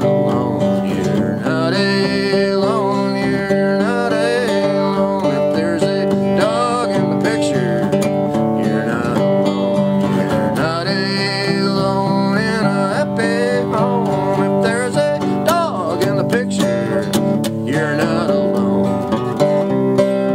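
Instrumental break of a folk song: a Gibson flat-top acoustic guitar picked and strummed, with a wavering, sliding lead melody over the chords.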